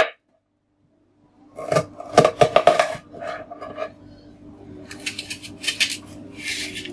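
Chef's knife slicing a red onion on a wooden cutting board: after about a second and a half of silence, a run of crisp cuts with the blade tapping the board, then rougher slicing strokes near the end.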